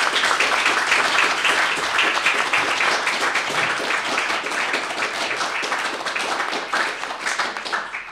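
Audience applauding at the end of a performance: dense clapping that eases off and dies away near the end.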